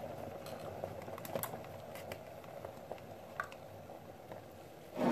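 Small metallic clicks as a folding multi-tool's pliers are opened and handled, over a steady low hiss of water boiling in a pot. A louder thump comes near the end.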